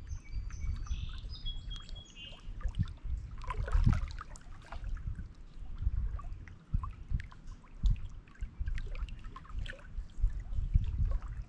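Small lake waves lapping and splashing against shoreline rocks: irregular low thuds and gurgling splashes, with a clearer splash about four seconds in. A small bird sings a short run of clear, high notes in the first second.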